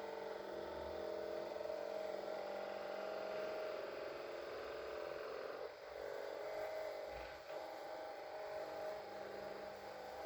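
Handheld electric massager running with a steady whirring buzz, its pitch wavering and shifting briefly about six seconds in as it is worked against the body.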